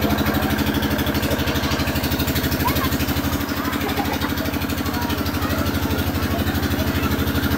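A small engine idling steadily with an even, fast pulsing throb, about ten beats a second. Faint voices sound over it.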